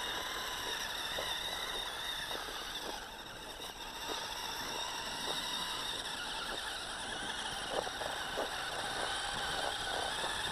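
Small electric motor and track of an RC snowmobile whining steadily as it climbs a snowy slope, with faint scattered ticks from the track.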